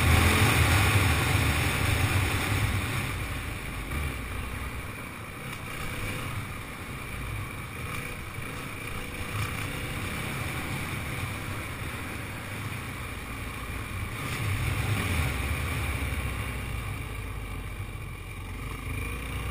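Yamaha WR450F dirt bike's single-cylinder four-stroke engine running under way on a gravel lane, with wind noise on the microphone. It is louder at the start and again about fifteen seconds in, easing off in between.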